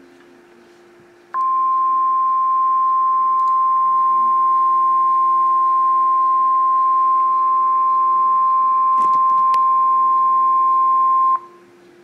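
NOAA Weather Radio's 1050 Hz warning alarm tone: a single steady, loud tone that starts about a second in, holds for about ten seconds, and cuts off sharply near the end. It is the alert signal for a flash flood warning.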